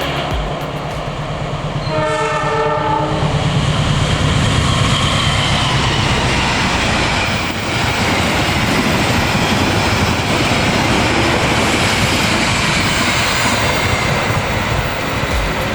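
Passenger train passing at speed: a short blast of the locomotive horn about two seconds in, then the loud rush of the train going by, with wheels clacking over the rail joints.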